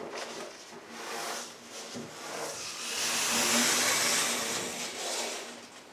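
Blue masking tape pulled off the roll and smoothed down along a car bonnet by hand: a hissing, tearing noise that comes in swells, loudest about three to five seconds in.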